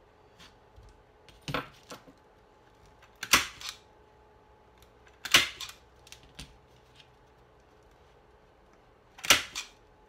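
A hand-squeezed T50 staple gun firing staples through folded canvas into a wooden stretcher bar. It gives sharp snaps: a softer one, then three loud ones, the last after a longer gap.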